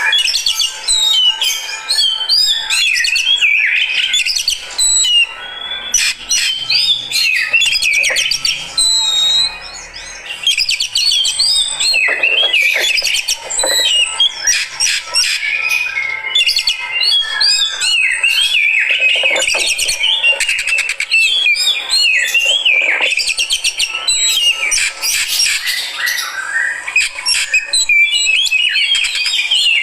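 Oriental magpie-robin (kacer) singing loudly and almost without pause, a fast, varied stream of chirps, whistled slides and trills. It is the full, aggressive song of a 'fighter' kacer.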